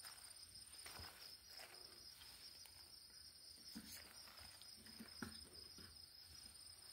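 Faint, steady, high-pitched trill of crickets, with a few soft knocks as a throttle body is handled on a concrete block, about a second in and again near four and five seconds.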